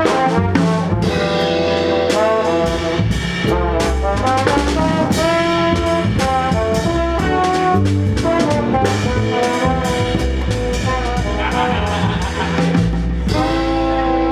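Jazz quintet playing a Brazilian jazz arrangement: held brass melody notes over a walking low bass and steady drum strokes.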